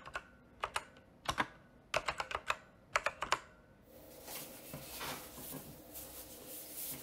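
Computer keyboard typing sounds, clicks in quick clusters of two to five keystrokes, for about four seconds. Then an abrupt change to a soft, uneven rustling noise of hands handling a paper planner.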